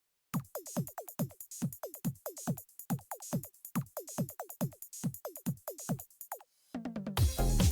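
Electronic background music. After a brief silence, a drum-machine beat of falling-pitch kicks comes in, about four a second, with crisp hi-hat ticks. Near the end it gives way to a louder, fuller synth track.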